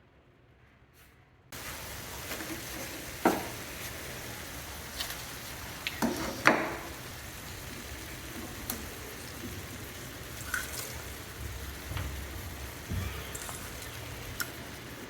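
Oil frying in a pan, a steady sizzle that starts suddenly about a second and a half in, with a few sharp clinks and knocks of a utensil against the pan, the loudest about a third and halfway through.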